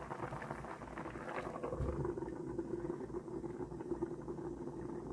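Water boiling in a saucepan of plantain pieces, with a knock about two seconds in as a glass lid is set on the pan. After that comes a steady low hum under the bubbling.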